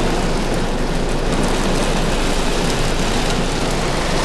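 Heavy rain drumming steadily on a car's roof and windows, heard from inside the cabin.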